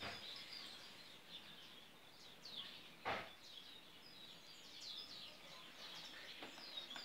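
Small birds chirping faintly and continually, many short falling chirps, with one louder short sound about three seconds in.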